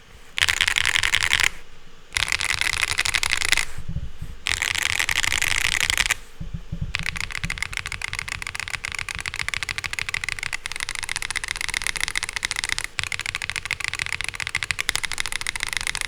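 Typing on a Monsgeek M1 V5 TMR keyboard with stock Geonworks Raw HE magnetic switches: a fast stream of clean, sharp, pretty high-pitched clacks as the plastic stems bottom out on the plastic bottom housing. Three dense bursts of rapid keystrokes with short pauses come first, then steady continuous typing.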